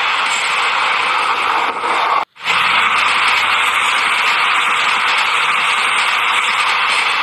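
Toy CC203 locomotive running on plastic track with its loaded wagons: a steady whirring, rattling hiss from its small motor and wheels. The sound cuts out for a moment a little over two seconds in, then carries on unchanged.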